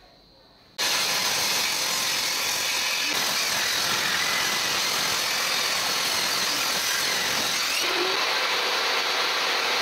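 Table saw running steadily while a rough pallet board is fed past the blade to square its edge. The saw noise starts abruptly about a second in, after a near-silent moment.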